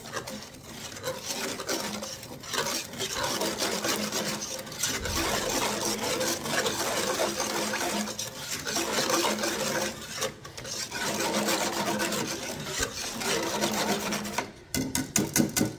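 Wire whisk beating cocoa powder, sugar and cornflour into milk in a pot, scraping rapidly and continuously against the pan, with a few short pauses.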